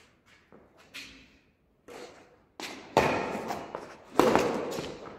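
Badminton rackets hitting a shuttlecock in a rally: a few faint taps, then from about halfway three loud, sharp hits, each ringing on briefly off the walls of the enclosed courtyard.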